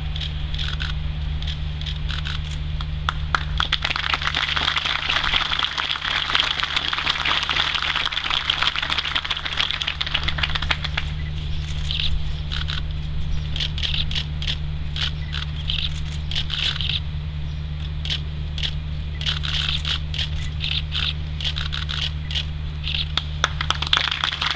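Irregular crackling over a steady low hum.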